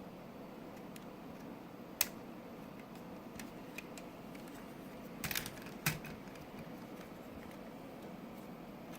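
A few sharp clicks of plastic Lego Technic pieces being handled: one about two seconds in, a quick cluster of clicks a little past halfway and another just after, with a couple of fainter ticks between, over steady low room hiss.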